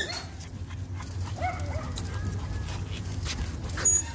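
A dog whining, with a few short, high whimpers and yips over a steady low hum.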